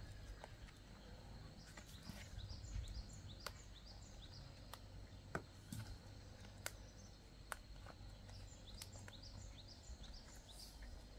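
Quiet rural outdoor ambience: a bird gives runs of short falling chirps twice, over a steady thin high insect tone. Sharp faint clicks come every second or so.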